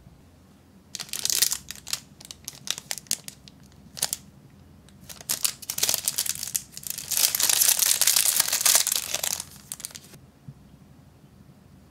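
Thin clear plastic packet crinkling as it is handled and opened: scattered crackles from about a second in, then a dense, continuous crinkling run that stops suddenly near the end.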